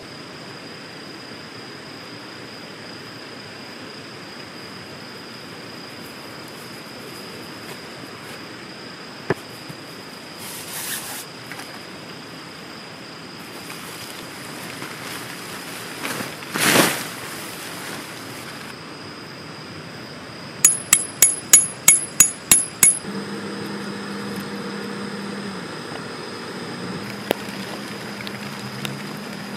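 A metal tent peg being hammered in: a quick run of about eight sharp, ringing strikes, a little over two-thirds of the way through. A short swish comes a few seconds before them, over a steady faint hiss.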